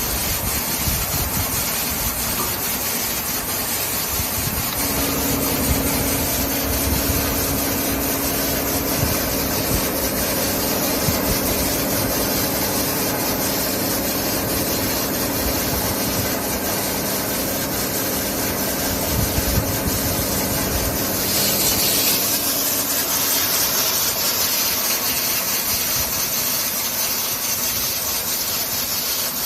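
SCM CL 110K RR wide-belt sander running, its 11 kW main motor and sanding belts making a steady whirring hiss. A steady hum joins about five seconds in and drops out about twenty-one seconds in, when a brighter hiss rises.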